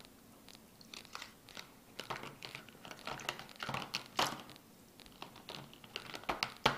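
Irregular crackling, scraping and clicking from handling, with a sharp knock near the end.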